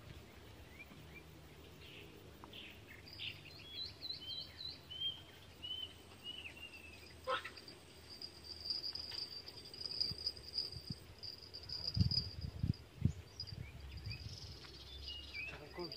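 Riverbank ambience: a bird calling in a run of short falling notes, and an insect's steady high-pitched buzz that sets in about three seconds in. A few low thumps come about three-quarters of the way through.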